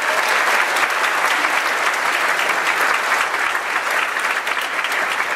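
Audience applauding: dense, steady clapping that starts to thin near the end.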